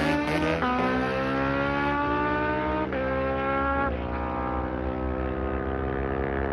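Drag-racing motorcycle engine at full throttle. Its pitch climbs in each gear and drops sharply at three quick upshifts, about half a second, two seconds and four seconds in. After the last shift it runs on at a high, slowly sagging pitch.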